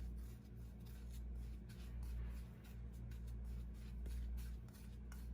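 Faint scratchy rustling and light scraping of dry ground spices being stirred together in a bowl, over a steady low hum.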